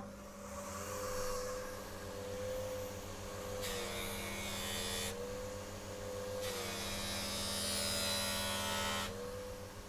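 Bench polishing machine running with a steady motor hum. Twice, for a second or two and then for about two and a half seconds, a hiss joins it as the brass mouthpiece is pressed against the buffing wheel, and the motor's pitch sags slightly under the load.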